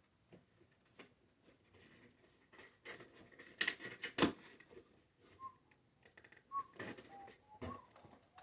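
Cardboard toy box and packing tape being handled and pulled at: scattered crinkles and clicks, with two louder knocks about three and a half and four seconds in. From about five seconds, a few short whistled notes at slightly different pitches.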